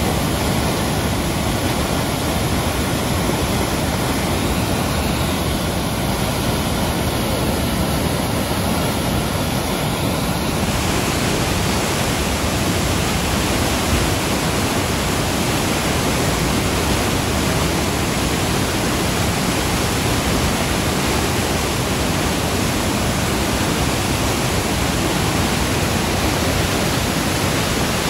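Muddy flash floodwater pouring and churning through a rocky channel: a steady, loud rush of water that grows a little brighter about ten seconds in.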